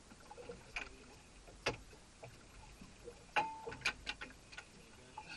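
Scattered sharp clicks and knocks from fishing gear being handled on a small boat while a snapper is unhooked: one about two seconds in, then a quick irregular cluster around four seconds in, with a short squeak among them.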